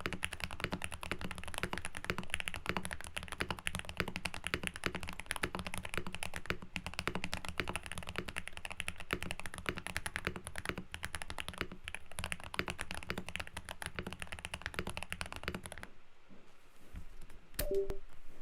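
Mechanical keyboard being typed on fast and continuously, many keystrokes a second. The typing stops about two seconds before the end. A single brief sharp sound with a short tone follows shortly after.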